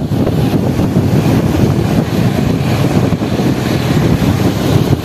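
Wind buffeting the microphone of a slow-moving motorcycle, a loud steady rush, with the vehicle's road and engine noise mixed in.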